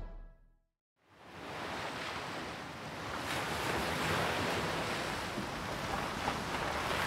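The end of the theme music fades out, and after a moment of near silence the steady rushing noise of sea surf and wind rises about a second in and carries on evenly.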